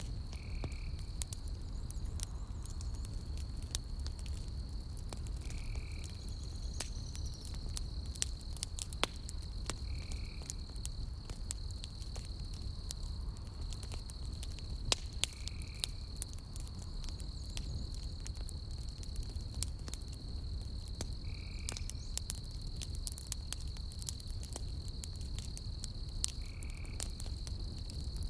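Burning logs in a campfire crackling and popping, with frequent sharp snaps over a low steady rumble. Behind it runs a steady high night-insect trill, and a short higher call repeats about every five seconds.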